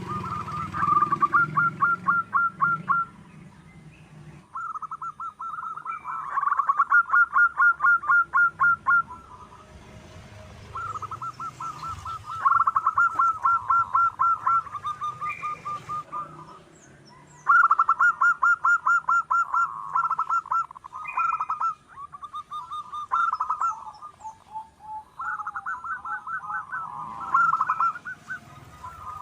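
Zebra dove (perkutut) singing: phrases of rapid, even staccato coos, each lasting a few seconds, repeated about six times with short pauses between. Faint high chirps of other small birds sound in the background.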